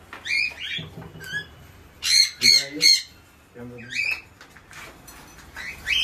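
Young sun conures giving a string of harsh squawks, separate calls with short pauses between them, loudest about two to three seconds in.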